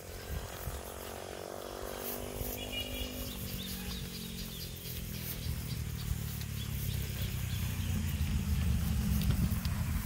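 An engine running, its pitch sliding down over the first few seconds, then a low rumble that grows louder toward the end. Faint short high chirps sound about two and a half seconds in.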